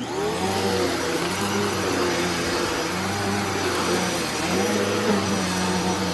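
Bissell PowerForce Turbo Pet 3332 upright vacuum cleaner switching on at the start and running steadily, with a loud motor and airflow hum whose low tones waver slightly in pitch.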